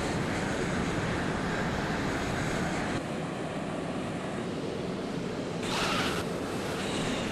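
Steady jet aircraft engine noise with a slight drop in level about three seconds in. A brief higher-pitched hiss comes about six seconds in.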